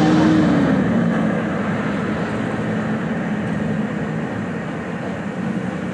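A motor vehicle's engine running, with steady road and traffic noise; an engine tone drops in pitch and fades near the start.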